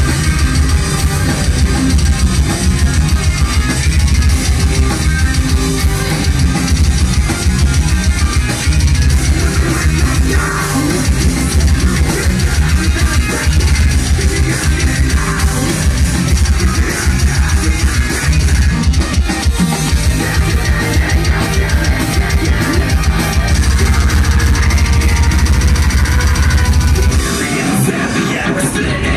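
Heavy metal band playing live and loud: distorted guitars, keyboard and a drum kit with a rapid, pounding kick drum. The low end drops away briefly near the end.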